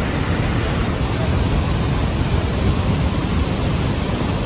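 Steady roar of Niagara Falls and its churning basin, mixed with wind buffeting the microphone.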